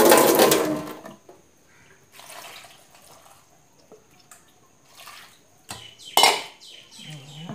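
Water running from a kitchen tap into a metal bowl, cut off about a second in. Then quieter water sounds and small knocks of the bowl against a pot, with one louder knock near the end.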